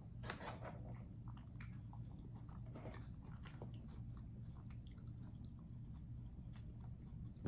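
Faint chewing and mouth sounds of a person eating: soft, scattered small clicks, with a sharper one just after the start.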